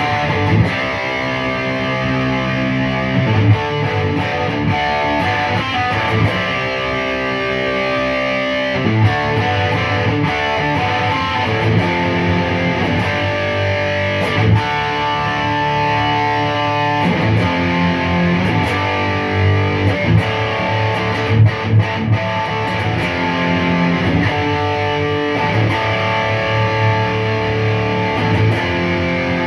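Distorted electric guitar music: sustained chords and notes that change every few seconds.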